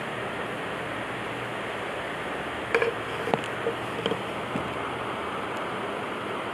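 Steady rushing background noise, with a few short knocks and clicks a little under halfway through.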